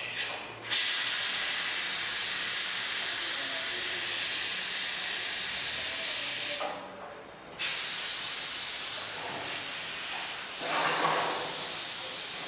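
Compressed air hissing out of a ball-vulcanizing press's air line, a steady rush that stops for about a second around seven seconds in and then starts again: the air being vented from the mold.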